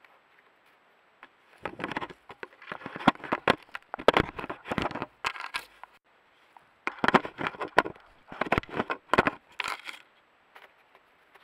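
Gray wolf investigating a trail camera at close range: its muzzle and fur scrape and crackle against the camera housing in two bouts of a few seconds each, with a short pause between.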